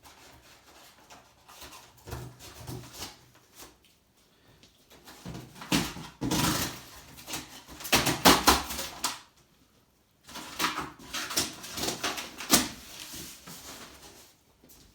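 A cardboard shipping box and its packing being handled and opened: irregular rustling and scraping with several sharp knocks, the loudest about six, eight and twelve and a half seconds in.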